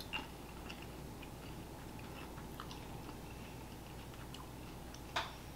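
Faint chewing of Haribo Tagada strawberry candies, sugar-dusted gummies firm on the outside, with scattered small crunching clicks and a slightly louder click just after the start and again near the end.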